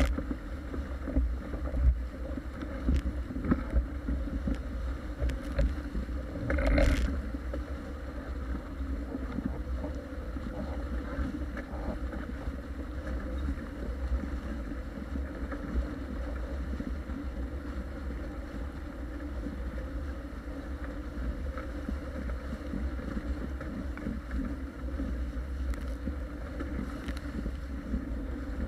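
Wind buffeting the deck-mounted camera's microphone as a Paper Tiger catamaran sails fast, with water rushing and hissing along the hull. A short burst of spray hits about seven seconds in.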